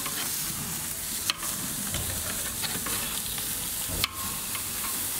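Ribeye steaks sizzling on the hot grate of a kamado grill, a steady hiss, with two sharp clicks of metal tongs on the grill as the steaks are turned.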